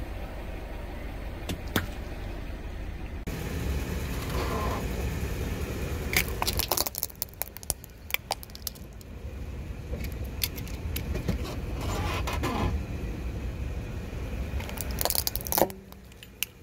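A car tyre rolls over objects with a low rumble. Sharp cracks and snaps come in clusters about six seconds in and again near the end as the objects are crushed.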